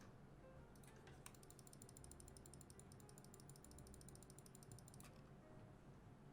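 Faint typing on a QK65 mechanical keyboard fitted with Holy Panda switches: a quick run of keystrokes starting about a second in and stopping about a second before the end.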